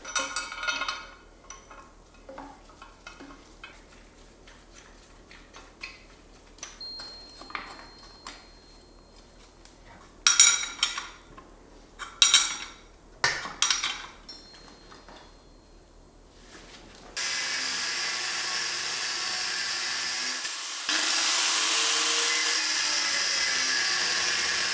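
Metal parts clinking and clattering as they are handled, with a few louder clatters between about ten and fourteen seconds in. About seventeen seconds in, a power tool starts running with a steady high-pitched whine, cutting steel bolts to length. It falters briefly about three seconds later, then runs on.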